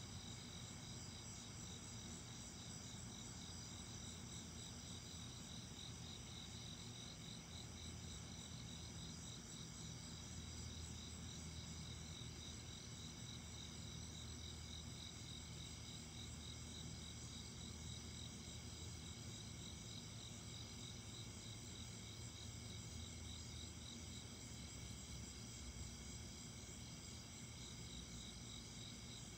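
Steady chorus of night-singing insects: several high, rapidly pulsing trills layered together, with a faint low hum beneath.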